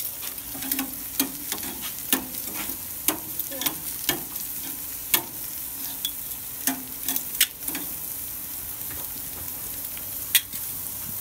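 Vegetable slices sizzling on a hot gas grill, with tongs clicking and scraping against the metal grates many times at an uneven pace as the slices are turned; the sharpest click comes near the end.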